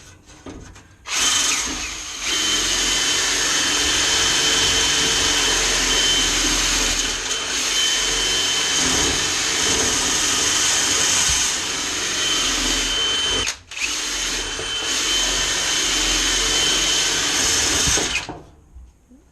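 An electric motor tool runs steadily with a loud hiss and a high, even whine. It cuts out for an instant about two-thirds through, starts again, and switches off about a second before the end.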